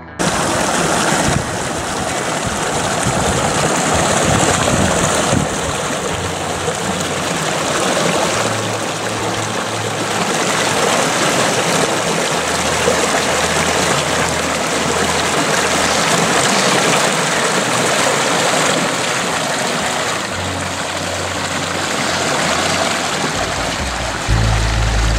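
Small rocky mountain creek flowing, a steady rush and babble of water, with a low rumble coming in near the end.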